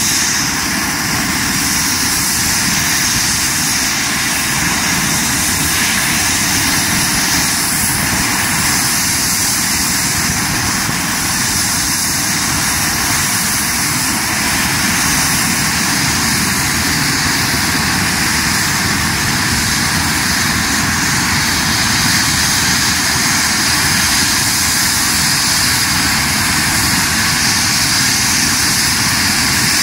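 Eurocopter EC135 air-ambulance helicopter running on the ground before take-off: loud, steady turbine and rotor noise that does not change.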